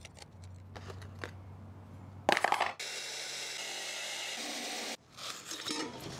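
A few faint clicks, then a cordless reciprocating saw starts with a loud burst and cuts into a hermetic compressor's steel shell for about two seconds before stopping abruptly. The compressor is then shifted and scuffed about on cardboard.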